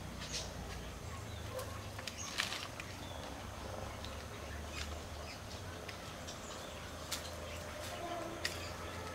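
Pruning shears snipping small bonsai twigs and leaves: a handful of short, sharp clicks at irregular intervals over a faint outdoor background.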